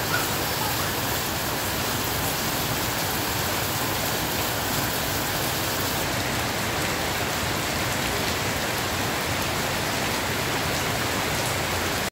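Heavy rain falling steadily on puddled ground and pavement: an even, unbroken hiss of splashing drops.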